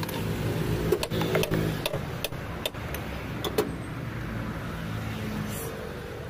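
Metal hand tools clicking and tapping against an opened engine's valve gear as a wrench is worked on it: about a dozen sharp metallic clicks, mostly in the first four seconds, the loudest about a second in. Under them runs a steady low mechanical hum.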